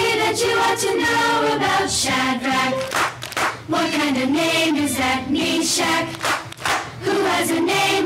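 A choir singing a song with musical accompaniment.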